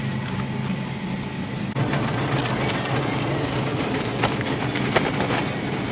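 Steady low hum of a supermarket frozen-food aisle, with irregular clicks and crackles from cardboard boxes of frozen food being handled.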